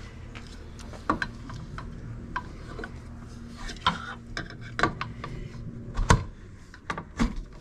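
Aluminium bike-rack parts being handled and fitted by hand: scattered clicks, knocks and rubbing of metal and plastic, with a sharper knock about six seconds in.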